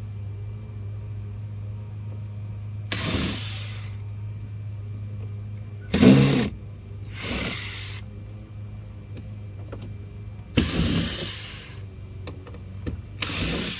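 Cordless drill-driver backing screws out of a plastic Power Wheels ride-on car body, run in five short bursts of about half a second to a second each.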